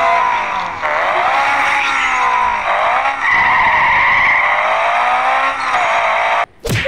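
Race-car engine sound effect revving, its pitch rising and falling several times, with a high tyre-squeal tone about three seconds in. It cuts off suddenly near the end.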